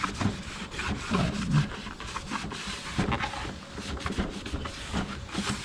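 Light handling noises: scattered small clicks and knocks with some rubbing, as car intake parts are moved about by hand.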